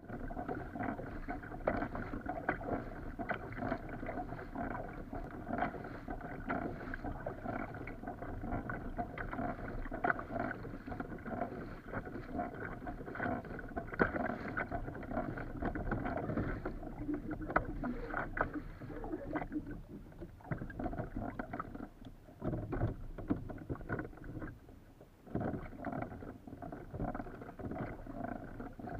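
Water splashing and lapping against a Hobie fishing kayak's hull as it moves across the sea, an irregular wash that eases off for a few seconds about three-quarters of the way through.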